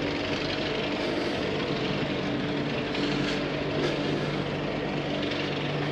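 A steady engine drone holding one pitch, over a constant hiss.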